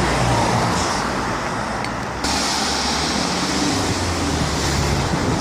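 Road traffic passing close by: a steady noise of cars going past, with a fresh rush of tyre and engine noise coming in a little over two seconds in.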